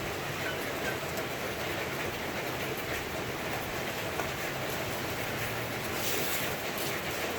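Steady rain falling, an even hiss of drops without a break.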